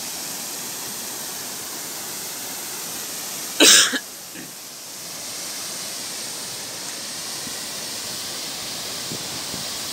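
Steady rush of water spilling over a low irrigation weir, with a single short loud cough about three and a half seconds in.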